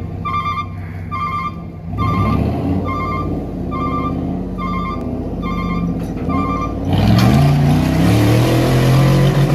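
A truck's reversing alarm beeps steadily about once a second and stops after about six seconds, over vehicle engines revving up and down. From about seven seconds in, the engine noise gets louder and rougher, as under hard load during a tow pull.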